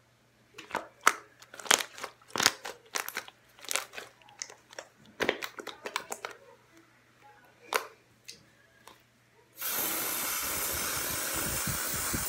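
Slime being kneaded and pressed by hand: a string of sharp wet crackles and pops. About nine and a half seconds in, an aerosol can starts spraying with a steady loud hiss.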